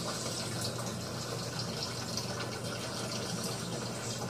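Water circulating in a saltwater reef aquarium: a steady trickling and splashing of water over a low, steady hum from the tank's pump.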